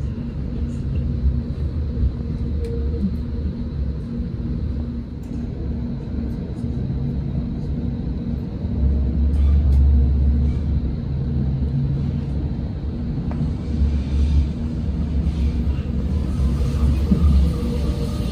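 A large engine running with a deep, steady rumble and hum that swells and eases every few seconds, loudest about halfway through.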